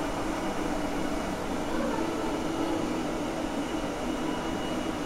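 Steady rushing air with a low, even hum from a running blower motor, holding at one level throughout.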